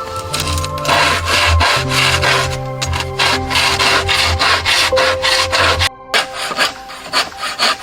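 A hand saw cutting wood in quick, regular back-and-forth strokes, with a short pause about six seconds in, over background music with held notes.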